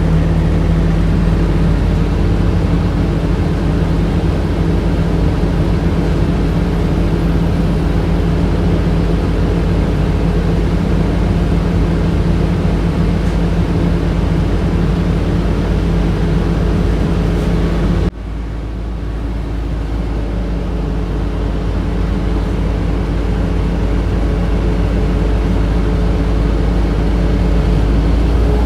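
Interior of a 2007 Orion VII transit bus on the move: a steady drone of the bus's HVAC and drivetrain with a constant hum. About two-thirds of the way in, the hum cuts off abruptly, leaving a lower rumble that slowly builds again.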